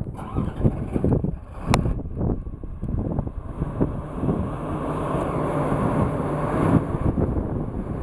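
Diesel engine and hydraulics of a tracked forestry processor running, with wind buffeting the microphone. There is a sharp knock about two seconds in. From about halfway the machine noise rises and holds, brighter and steadier, as the machine works under load.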